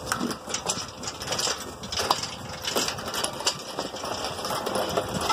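Hand-pumped hydraulic engine hoist lifting an engine, a run of irregular metallic clicks and clanks, several a second, from the pump handle and boom as the load rises.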